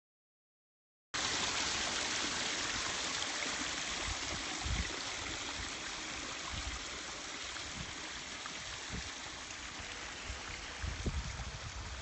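Water pouring from a garden hose and splashing over rocks into a pond, a steady rushing splash that starts suddenly about a second in, with a few low bumps.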